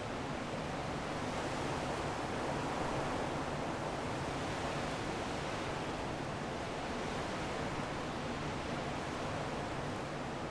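Strong wind blowing steadily as an even rushing noise, swelling a little a few seconds in.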